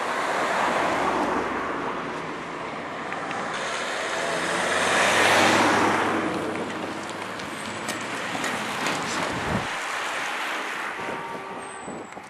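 Renault car passing close by on a tarmac road, its tyre and engine noise swelling and fading, then a second, louder vehicle pass that peaks about five seconds in and dies away.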